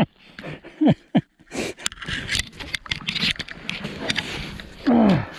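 Snowshoes crunching and scraping through snow in quick, uneven steps, with a couple of short vocal sounds that fall in pitch, one near the start and a longer one near the end.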